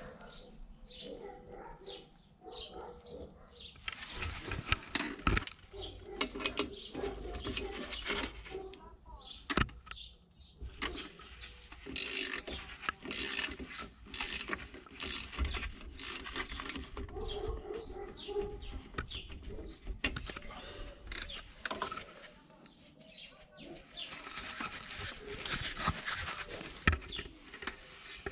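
A socket ratchet clicking and metal tools knocking against steel while bolts are worked on a rear drum-brake backing plate. The sharp clicks come in irregular runs, busiest around the middle.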